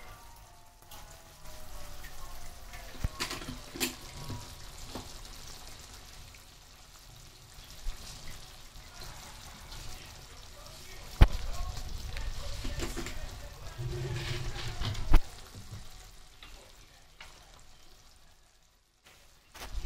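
Canned pilchards sizzling in a pan as they are stirred, with a utensil knocking against the pan now and then; the sharpest knocks come about 11 and 15 seconds in.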